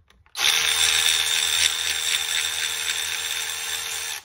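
Electric screwdriver spinning a 5 mm hex bit to back out a bolt holding the intake pipe to the supercharger. It runs steadily for almost four seconds with a motor whine, starting and stopping abruptly.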